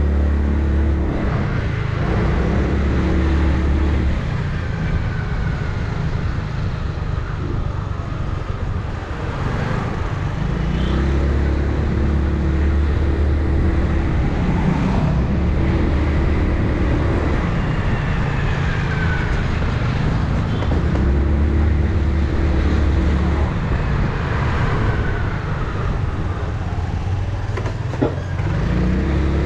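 2008 Yamaha R6's inline-four engine through an Akrapovic megaphone exhaust while riding, over constant wind and road noise. The engine holds a steady note for stretches, and its pitch falls several times as the throttle is rolled off. There is a sharp click a little before the end.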